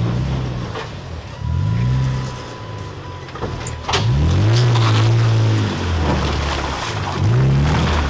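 Lifted Toyota Tacoma's engine revving up and falling back in several throttle surges as the truck crawls over boulders, each surge rising in pitch and easing off. A few sharp knocks, tyres or underbody on rock, come a little past the middle.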